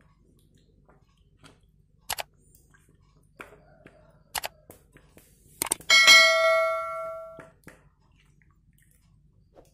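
Subscribe-button animation sound effect: a few sharp mouse clicks, then one bright bell ding about six seconds in that rings out for about a second and a half.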